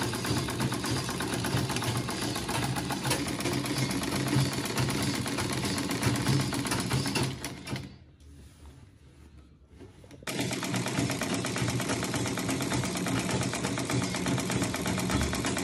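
Sewing machine stitching fast, its needle strokes a rapid, even chatter over a low motor hum. It stops for about two seconds in the middle, then starts stitching again.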